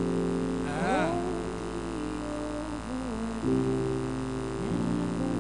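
Steady low hum under sustained low tones that change pitch together every second or two. A short voice sound comes about a second in.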